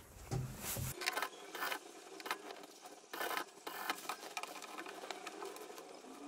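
Herringbone skirt fabric and its lining rustling as they are bunched and fed under an industrial sewing machine's presser foot, with irregular soft rustles and small clicks.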